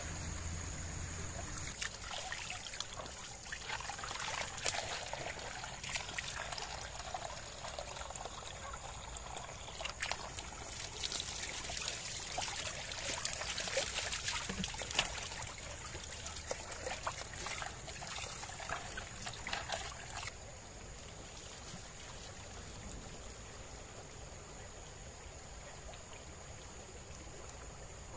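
Water trickling and splashing over stones, with many small clicks and splashes; the trickling cuts off abruptly about two-thirds of the way through. A steady high-pitched drone of night insects runs underneath.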